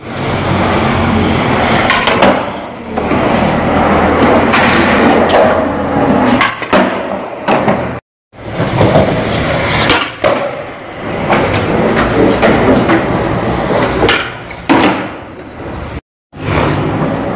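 Skateboard wheels rolling on a concrete floor, with sharp clacks of the board popping and landing. The sound drops out briefly twice.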